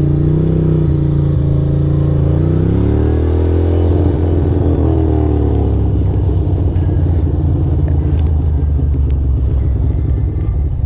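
2006 Ducati Monster 620's air-cooled L-twin engine pulling away at low speed: its pitch rises about two seconds in, drops back a couple of seconds later, then runs steadily.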